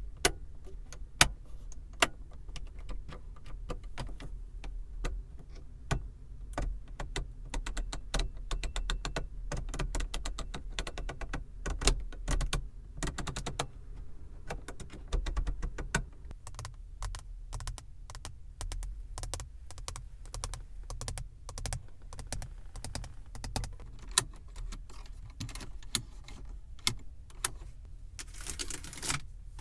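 Fingers tapping and clicking on car surfaces in ASMR style: single taps and quick runs of light taps over a low, steady rumble. Near the end there is a short scratching sound.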